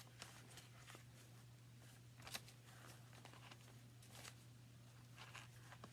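Near silence: a steady low hum, with a few faint rustles of paper and hemp thread as the sewn signature is pulled tight.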